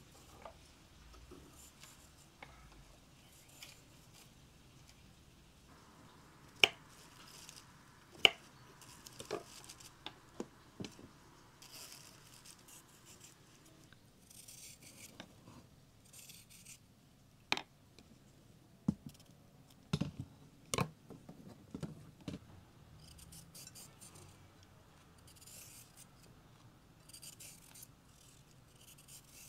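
Vegetables being peeled and cut by hand with a small kitchen knife: soft scraping of the blade along cucumber and carrot skins, broken by scattered sharp knocks on a wooden cutting board, the loudest two about a quarter of the way in.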